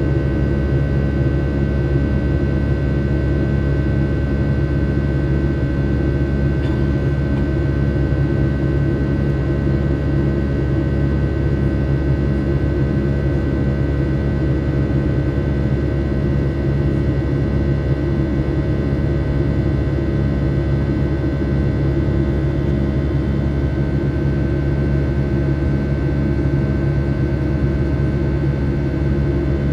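Boeing 757-300 cabin noise beside the wing-mounted turbofan during the climb: a steady loud engine drone and buzz of several fixed tones over a low rumble of airflow, with a slow regular beat in the drone.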